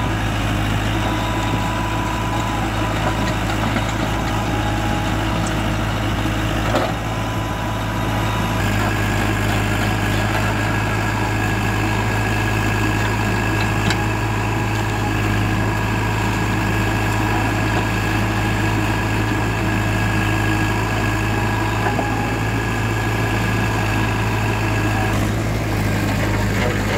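JCB 3DX backhoe loader's diesel engine running steadily while it digs and dumps stones, with a couple of brief knocks along the way.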